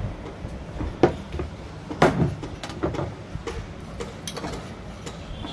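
Irregular clicks and knocks of a stand fan's parts being handled as it is taken apart, the two loudest knocks about one and two seconds in.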